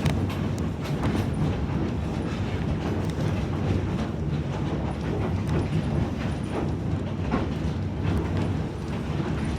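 Narrow-gauge passenger train rolling behind a diesel locomotive: a steady rumble of wheels on rail with a low drone, and occasional light clicks from the track.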